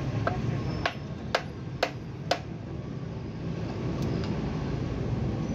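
Hammer striking the cast casing of a Mazda 3500 manual gearbox: four sharp metal clanks about half a second apart, knocking a front plate loose, over a steady low rumble.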